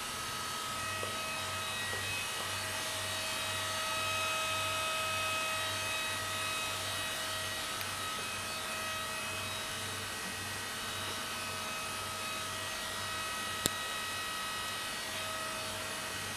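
CNC woodworking router running: a steady machine whine with a low pulsing about twice a second, and one sharp click near the end.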